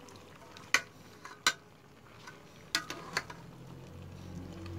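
Metal spatula stirring a thick meat-and-vegetable stew in a rice cooker's metal inner pot, the blade clinking against the pot four times. A low hum comes up near the end.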